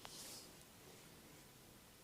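Near silence: room tone, with a faint click and a brief soft brush of sound just after the start.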